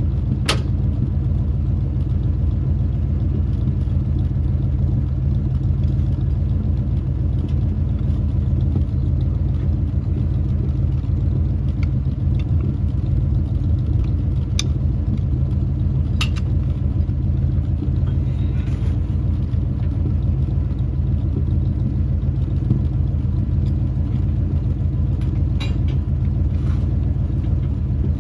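1968 Dodge D300 tow truck's engine running steadily at low speed, with a few sharp clicks or knocks over it.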